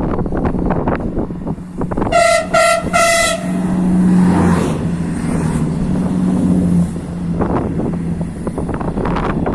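Train horn sounding three short toots about two seconds in, followed by the steady low hum of a passing train. Wind buffets the microphone.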